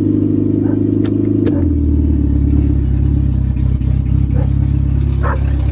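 Engine of an automatic Honda running steadily, its pitch dropping slightly about a second and a half in, then holding even.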